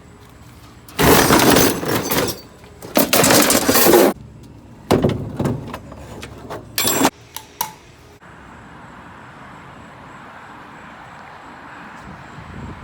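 Loud clattering crashes in four bursts over the first seven seconds, the two longest about a second each, then a steady, even hiss.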